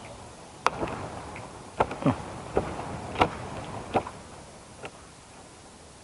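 A series of about six sharp clicks and knocks spread over four seconds, the handling noise of taking land snails out to set them down.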